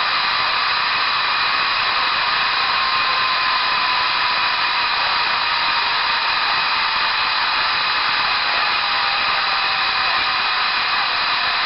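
A steady, even rushing hiss with a few faint steady tones in it and a faint whistle that slowly sinks in pitch.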